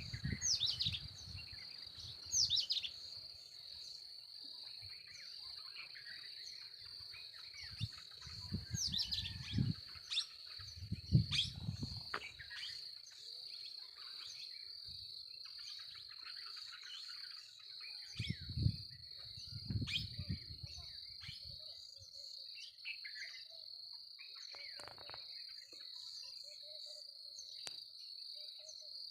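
Several small birds chirping in the early morning, with many short falling chirps, over a steady high-pitched drone. A few bursts of low rumble come and go, near the start, about a third of the way in and again past the middle.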